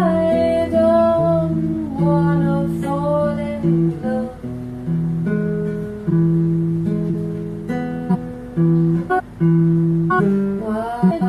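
Acoustic guitar music with plucked, held notes and a singing voice gliding in and out above them.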